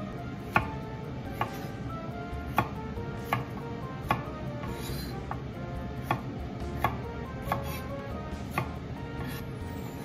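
Chef's knife cutting onion into wedges on a wooden cutting board: the blade knocks on the board about once a second.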